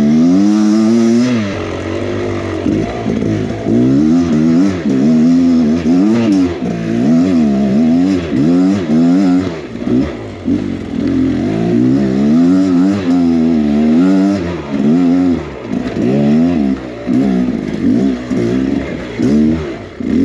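2023 Beta X Trainer 300's two-stroke single-cylinder engine revving up and down in short bursts of throttle, about once a second, while the dirt bike is ridden slowly over a technical trail.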